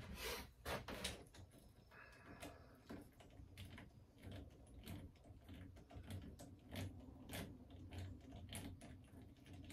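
Faint, irregular clicks and taps of a hand tool and small metal parts being worked on a dirt bike's handlebar clutch lever assembly.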